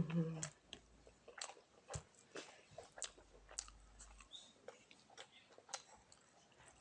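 A person chewing a mouthful of rice and fish close to the microphone, with wet mouth clicks and smacks coming every half second or so. A brief low hum is heard at the very start.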